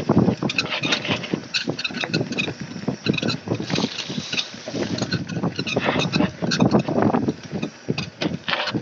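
Mountain bike clattering and rattling over a rough, steep dirt trail on a fast descent, with many irregular knocks from the bike and wind rumbling on the microphone.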